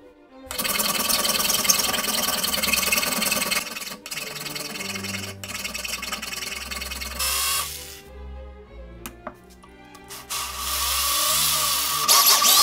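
A power tool working steel, in two loud stretches of even noise with a steady whine: one from about half a second in to about three and a half seconds, another from about ten seconds in. Background music with a steady bass line plays underneath.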